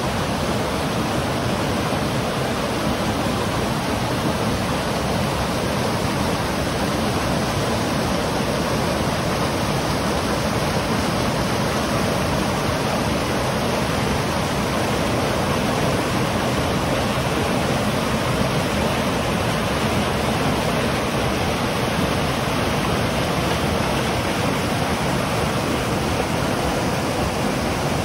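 Small waterfall's white water rushing over rocks: a loud, steady rush of water with no change.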